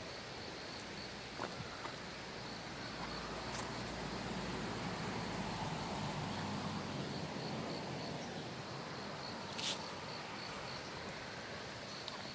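Outdoor ambience of insects chirping, a faint high ticking about three times a second over a steady background hiss. A low rumble swells up and fades in the middle, and a short sharp sound comes near the end.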